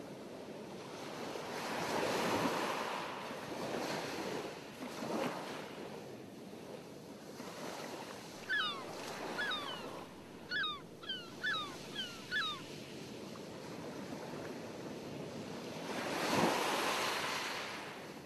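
Ocean waves washing on a shore, swelling and falling back in slow surges. In the middle comes a run of about nine short, falling cries.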